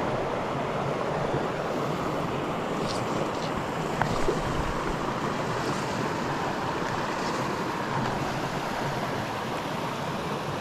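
Shallow creek water running over rocks, a steady rush, with one light click about four seconds in.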